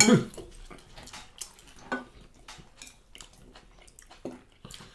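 Knife and fork clicking and scraping on ceramic plates, with close-up chewing, in short scattered clicks.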